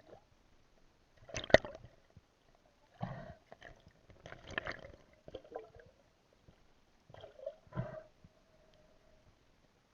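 Water splashing and gurgling in about five short bursts, the loudest about one and a half seconds in.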